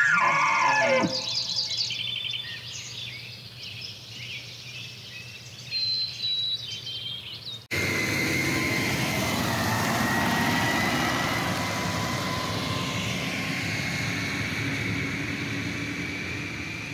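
A pitched elk call ends in the first second, followed by scattered high bird chirps. A sudden cut then brings a louder steady rushing engine noise with a faint whine that slides slowly in pitch, like a vehicle or aircraft passing.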